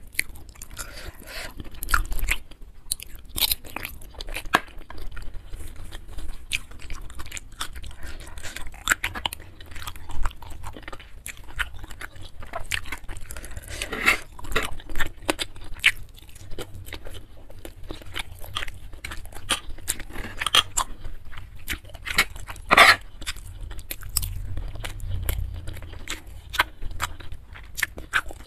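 Close-miked chewing and wet mouth sounds of a person eating stir-fried seafood flat rice noodles (kwetiau), with many small clicks and a few louder crunches scattered through, over a faint low hum.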